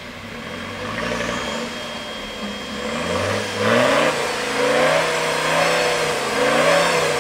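Modified off-road 4x4's engine revving up and down several times as it pulls through a muddy gully, getting louder about halfway through.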